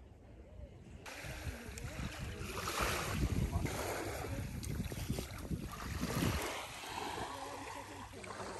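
Wind buffeting the microphone, with water washing at the shore; it grows louder about a second in.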